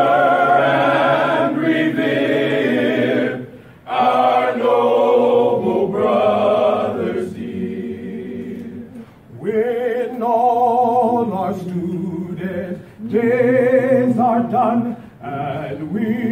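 Male a cappella choir singing sustained chords with vibrato, in long phrases broken by short pauses for breath about every five or six seconds.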